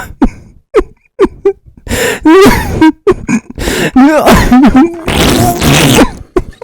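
A person laughing uncontrollably in short bursts, gasping for breath between them, with a long breathy wheeze about five seconds in.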